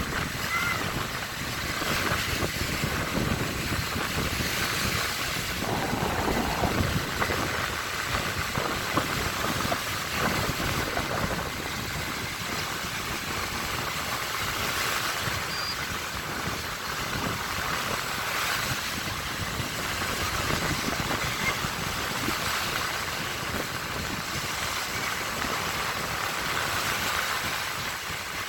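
Baltic Sea waves washing onto the shore: a steady rush of surf that swells and eases gently.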